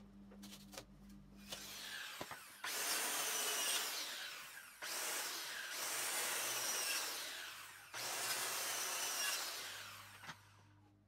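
DeWalt handheld circular saw spinning up with a rising whine, then cutting through a green-wood timber beam in three long loud stretches with brief dips between them, and winding down near the end.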